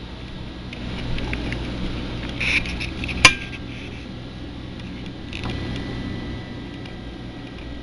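Steady low hum with light knocks and clicks from the camera being handled against the aquarium glass, and one sharp click a little past three seconds in, the loudest sound.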